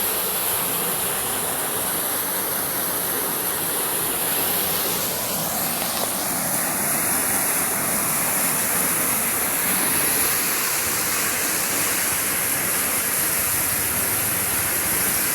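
Water pouring over a river weir: a steady, loud rush without a break.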